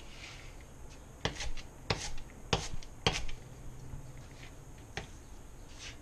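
Chef's knife slicing red cabbage on a plastic cutting board: a string of short, sharp knife strikes against the board, starting about a second in and coming about once every half second to second.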